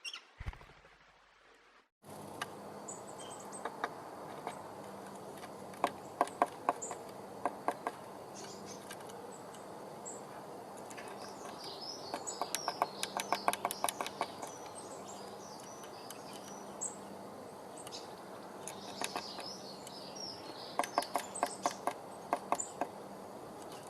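Blue tit pecking at the wood of a nest box in quick runs of sharp taps, with short high chirps in between.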